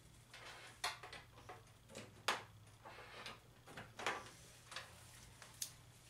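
Handling noise: scattered light clicks and rustles, about eight in all, as a cable is pulled from a tangle and fitted to a small plastic video doorbell, over a steady low hum.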